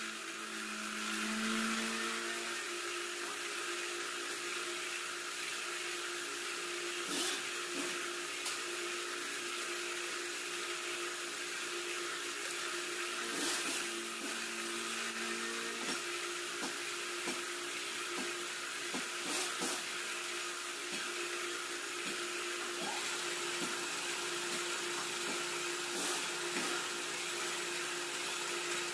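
Vertical milling machine reboring a motorcycle cylinder: the spindle runs steadily with a constant hum and a hiss of the boring bar cutting metal, with occasional sharp clicks.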